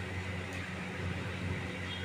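Steady low mechanical hum with an even hiss over it, unchanging throughout.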